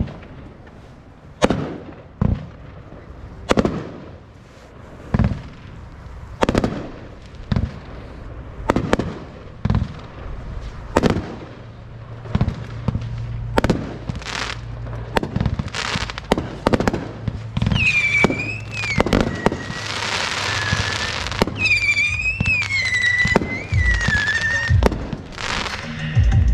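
Fireworks going off in a display finale: sharp bangs about once a second at first, coming thicker and faster. In the later part, high wavering whistles and a dense crackle join the bangs.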